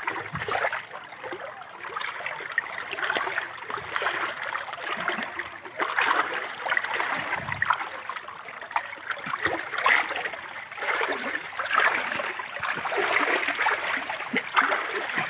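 Floodwater splashing and flowing, with uneven surges every second or two.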